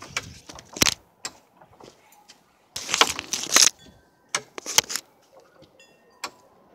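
Handling noise from a hand-held phone being moved about: irregular sharp clicks and knocks with short scraping, rustling bursts, the loudest about a second in and between three and five seconds.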